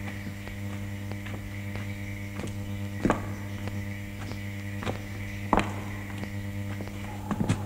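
Steady low electrical hum with a faint high whistle above it, and three short knocks about two seconds apart.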